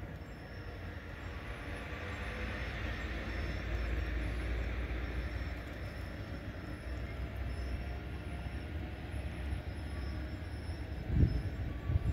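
Double-deck passenger train rolling past, a steady rumble of wheels on rail that swells about four seconds in. Near the end come a few loud low thumps.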